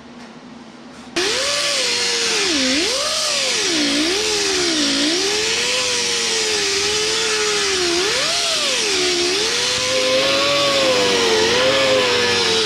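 Right-angle die grinder with a small sanding disc running against the steel body panel of a 1932 Ford coupe, stripping paint and rust. It starts suddenly about a second in, then runs with a steady hiss and a whine whose pitch keeps dipping and rising.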